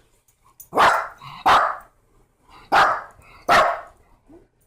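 A dog barking four times, in two pairs of short, loud barks.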